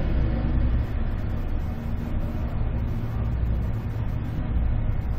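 Steady low hum with an even hiss of background noise, unchanging throughout.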